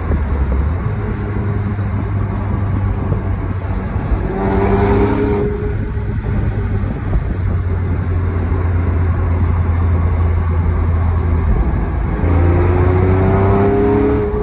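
2008 Porsche 911 Carrera S's 3.8-litre flat-six running under way, heard from inside the cabin over road noise. The engine note rises as it accelerates about four seconds in and again near the end.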